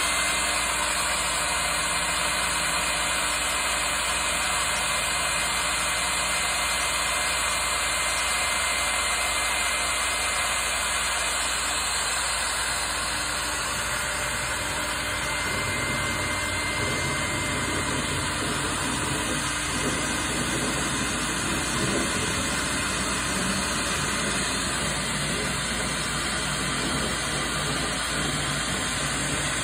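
CNC router running: a steady machine drone with a faint high whine held throughout.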